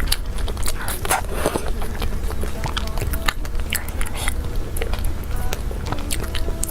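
Close-miked mouth sounds of someone biting and chewing Korean cake: a run of short, irregular clicks and light crunches over a steady low hum.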